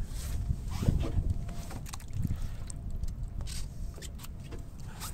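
Short scrapes, rustles and clicks of fishing tackle and clothing being handled as line is held and a spinning reel is readied, over a low steady rumble.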